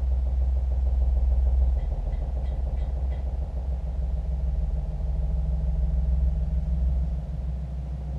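Deep electronic drone from a psychoacoustic sound installation, played loud over a hall's speaker system: a heavy sub-bass rumble with a steady hum layered above it. About two seconds in, a short run of faint high blips sounds over it.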